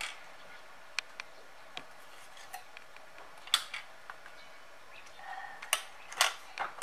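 Plastic toy kitchen pieces being handled and set down: about ten light, irregularly spaced clicks and knocks, the sharpest about three and a half seconds in.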